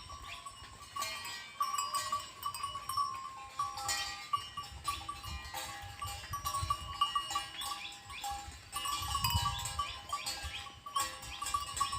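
Goats calling, with bells ringing in a steady, flickering jingle.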